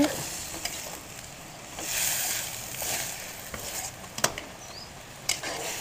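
Vegetables and chicken sizzling in a wok while a metal spatula stirs them, with a few sharp clicks of the spatula against the pan. The sizzling swells louder about two seconds in.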